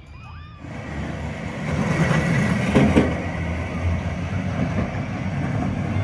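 A roller coaster train rolling along its track: a steady rumble with a faint whine that starts abruptly about a second in and grows louder, with a couple of sharp clicks a few seconds in.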